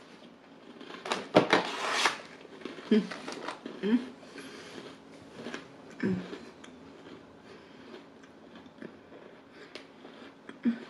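Close-up chewing of a mouthful of crunchy chocolate-cream sandwich biscuits, with a crackly burst about a second in and a few short closed-mouth hums.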